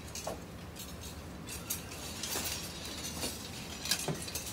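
Several ceremonial swords being slid back into their scabbards on the command to return swords: a scattered series of metallic scrapes and clinks from different men, the sharpest near the end.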